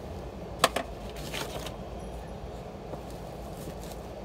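Plastic worm-bin tray being lifted off a stacked vermicompost tower: a sharp plastic knock about half a second in, a lighter knock right after, then a brief scraping rustle. A steady low hum of city background noise runs underneath.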